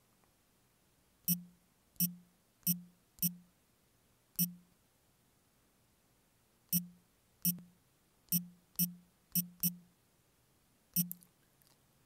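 Key presses on an Android phone's on-screen keyboard while a name is typed: about a dozen short, unevenly spaced taps, each a sharp click followed by a brief low hum.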